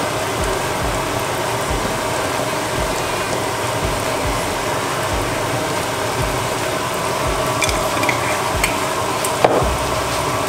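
Diced onion, chili, ginger and garlic frying in coconut oil in a non-stick frying pan, a steady sizzle. A few light taps near the end.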